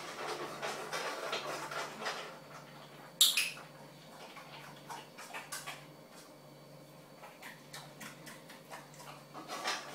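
English bulldog eating from its food bowl, with busy chewing and snuffling for the first couple of seconds, then scattered small clicks. A single loud, sharp clatter about three seconds in.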